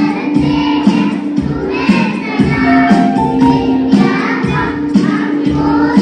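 A song with children's voices singing over a steady beat.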